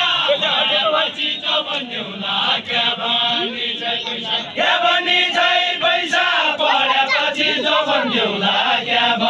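Group of voices singing a Deuda, the Nepali far-western folk song, in a chant-like chorus, several voices overlapping without a break.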